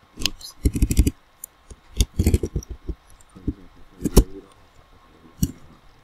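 Computer keyboard and mouse clicking and tapping close to the microphone, in irregular short clicks and knocks, some with a dull thump.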